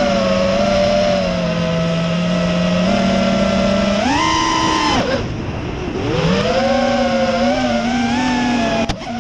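FPV freestyle quadcopter's brushless motors and propellers whining at a steady pitch, jumping higher about four seconds in as the throttle is punched, dropping away and fading about a second later as the throttle is cut, then climbing back up and holding.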